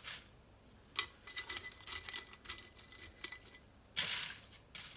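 Brittle dehydrated chili peppers crackling and rustling as a gloved hand gathers them and packs them into a glass jar, with a string of small crackles and clicks and a louder rustle about four seconds in.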